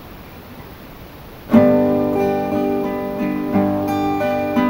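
Acoustic guitar beginning a slow ballad: after a second and a half of quiet, a loud strummed chord rings out, followed by ringing chords that change every half second or so.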